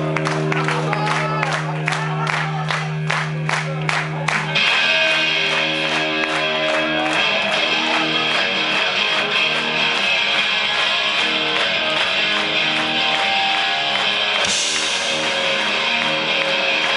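Live rock band playing an instrumental passage on electric guitars and drums. Rhythmic hits over a held low note give way after about four seconds to sustained chords, with cymbals coming in loudly near the end.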